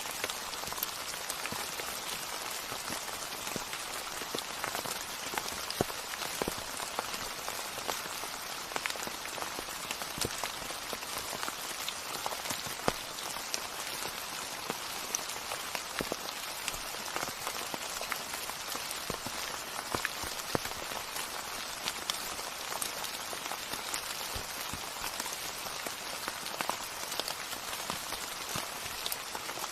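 Steady rain falling on a surface, an even hiss with many distinct drops tapping through it.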